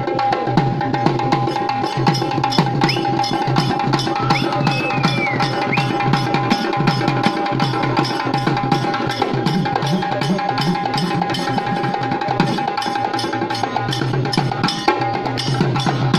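Drum-led music with a fast, steady beat of hand-drum strokes over a steady held note, with a few short high glides about three to five seconds in.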